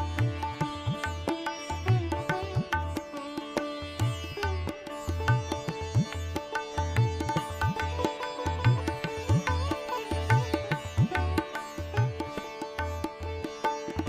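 Background music: a plucked string melody over a steady drone, with a low drum beating a regular rhythm.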